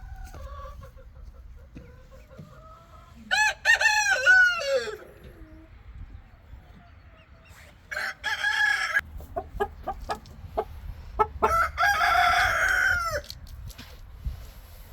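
Rooster crowing three times, a few seconds apart, the first crow ending in a long falling tail, with hens clucking between the crows.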